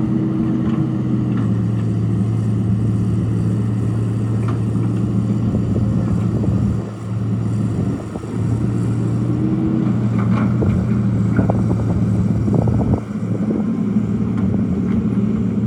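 Hitachi EX200 excavator's diesel engine running steadily under working load, with a brief higher whine near the start and again midway, the level dipping for a moment a few times. A few knocks and clatters come in the second half.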